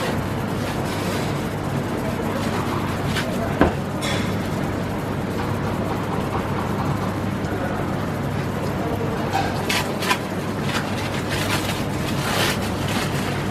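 Busy food-court ambience: a steady low hum under indistinct background chatter. A sharp knock comes about three and a half seconds in, and a few short clatters follow near the end.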